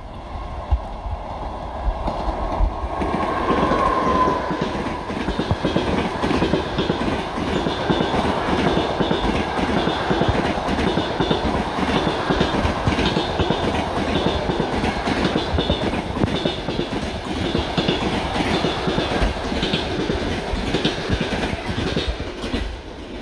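An EP2K electric passenger locomotive and its train of passenger coaches passing without stopping. A loud rush of steel wheels on rail with a rapid clickety-clack over the rail joints builds as the locomotive arrives about three seconds in, with a short high tone, and falls away at the end as the last coach clears.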